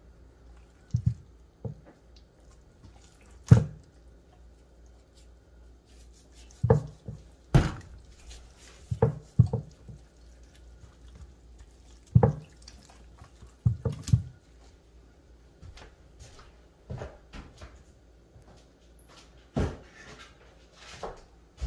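Irregular soft knocks and wet thuds as gloved hands shake seasoning over a whole red snapper and rub it into the fish on a wooden cutting board.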